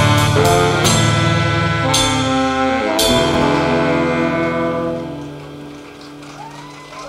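Live rock band ending a song: loud full-band chords struck several times, the last hit about three seconds in, which then rings out and fades away.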